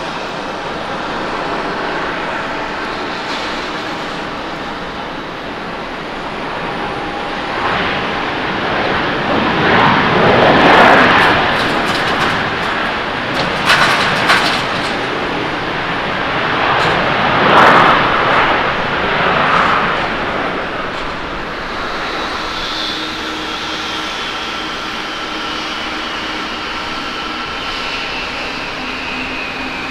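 Boeing 737-800 landing: its twin CFM56 turbofans run with a steady rushing noise that swells into several loud surges during the rollout after touchdown. In the last seconds a high engine whine slowly falls in pitch.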